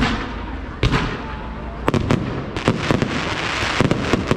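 Fireworks display: aerial shells bursting with sharp bangs, three about a second apart, then a quicker run of bangs over crackling in the second half.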